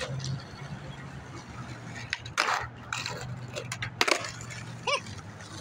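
Skateboard knocking and scraping on pavement, with a sharp clack of the board about four seconds in.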